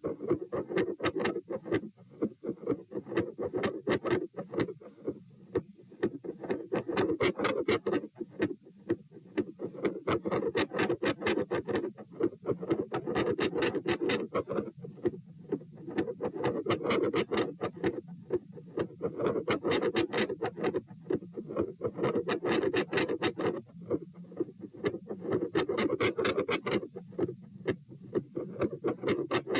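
Heart sounds recorded at the chest, quick regular beats over a whooshing noise that swells and fades about every three seconds. The recorder hears this as phasic pressure changes with normal and abnormal beats, and wonders whether it is a PFO shunt.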